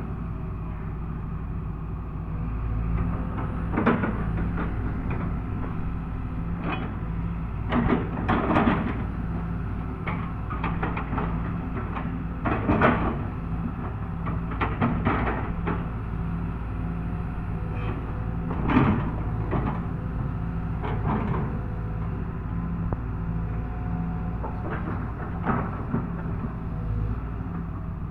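Excavator diesel engine running steadily under the work, with about ten clanks and knocks scattered through it as the machine operates.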